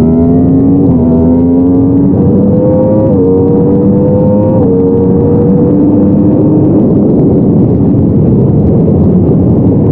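Yamaha R1 inline-four engine under hard acceleration, its pitch climbing and dropping sharply with three quick upshifts in the first five seconds, then holding a steady high-speed note under loud wind rush. The engine is being run in.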